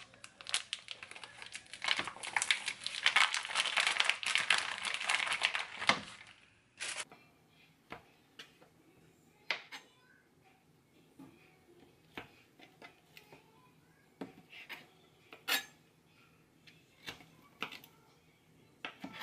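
Plastic food packaging crinkled and torn open, a dense rustle for about the first six seconds. Then a chef's knife slicing a soft food slab into strips, its blade knocking on a plastic cutting board in scattered single clicks.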